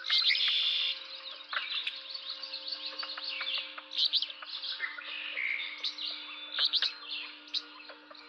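Songbirds singing, many overlapping chirps and trills, loudest in the first second, over a faint steady low hum.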